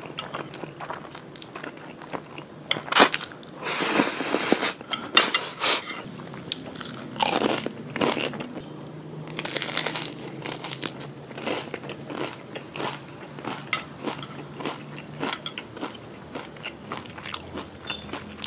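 Close-miked eating: spaghetti slurped in a few long noisy draws, with chewing, mouth clicks and smacks between them.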